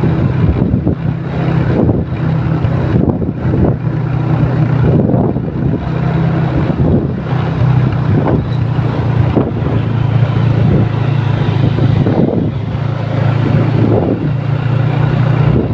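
A bus running with a steady low drone, under rough wind noise on the microphone that swells and fades again and again.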